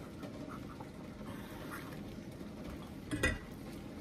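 Faint handling of an opened tin can, with one short knock about three seconds in.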